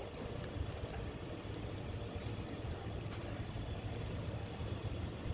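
Steady low rumble of nearby road traffic. Over it come a few faint crunches and clicks of biting into a sub sandwich.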